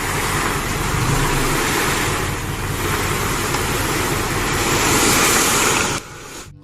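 Toy dump truck's plastic wheels rolling across a hard floor: a steady, loud rushing rumble that cuts off suddenly about six seconds in.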